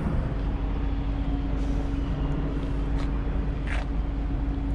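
A truck engine idling steadily: an even low drone with a constant hum and a few brief scuffs.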